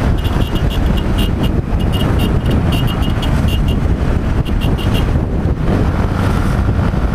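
Yamaha XT 660R single-cylinder engine running at road speed in traffic, under heavy wind noise on the microphone. For about the first five seconds a run of short, high chirps comes and goes irregularly over it.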